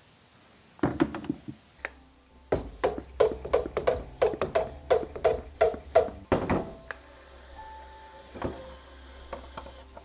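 Hand-pump pressure spray bottle being pumped up with about a dozen quick strokes, roughly three a second, each with a short squeak. A brief hiss of spray follows, then soft background music.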